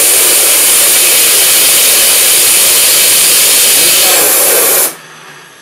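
Compressed-air blow gun blasting into the intake of a small homemade jet engine to spin it up, a loud steady hiss that cuts off suddenly about five seconds in.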